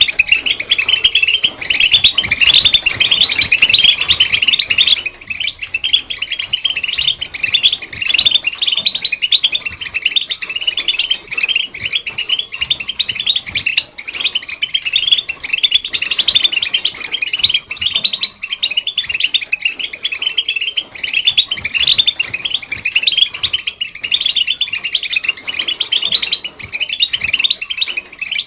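European goldfinch singing a fast, continuous twittering song of rapid chirps and trills, without pause.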